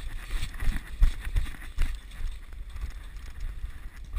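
Wind buffeting a body-worn camera's microphone, with irregular low thumps and rustling from the wearer moving.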